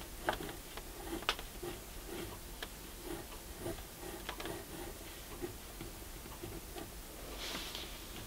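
Mechanical pencil drawing on paper: irregular short scratches and light taps as the lead makes quick sketch strokes, with a longer hiss about seven and a half seconds in.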